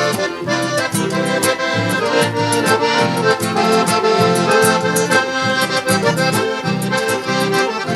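Accordion playing an instrumental passage between verses of a gaúcho song, backed by guitar and bass in a steady rhythm.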